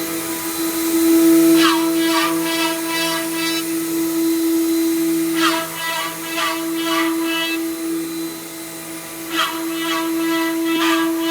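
Woodworking CNC router spindle running with a steady whine while it cuts. A louder rasping cluster comes back about every four seconds.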